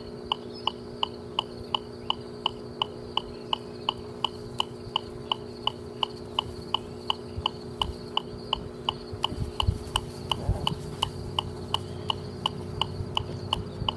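Electronic metronome beeping steadily, about three beats a second, setting a marching tempo, over a low steady hum.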